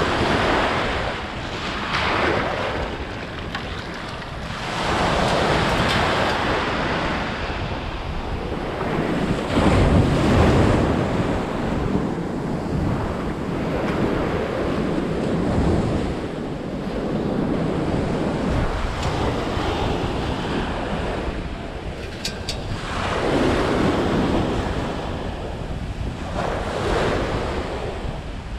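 Ocean surf breaking and washing up the sand, swelling and fading every few seconds, with wind buffeting the microphone.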